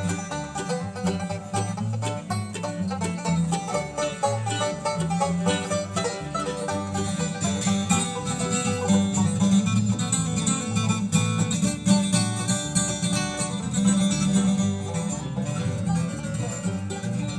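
Bluegrass band playing an instrumental break: banjo and guitar picking over changing bass notes, with no singing.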